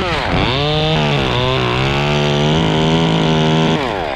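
Two-stroke chainsaw revved up, dipping in pitch for a moment and then held at a steady high pitch, as when it is working through wood; near the end the throttle is let off and the pitch falls away.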